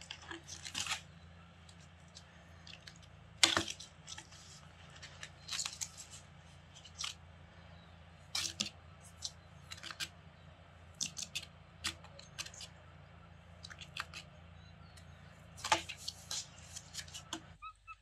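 Scratching and tapping on a weathered wooden bench seat: irregular sharp scratches and clicks, with a loud one about three and a half seconds in and another near the end.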